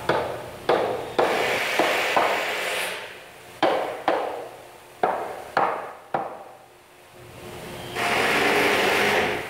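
Hammer blows on a wooden staircase being assembled: about nine sharp strikes in irregular groups, each ringing briefly. Near the end a steady hiss lasts over a second.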